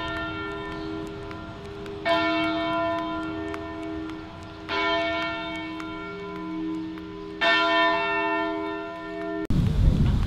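Church bell tolling slowly, one stroke about every two and a half seconds, each ringing on with a long hum between strokes. It cuts off suddenly near the end, giving way to wind rumble on the microphone.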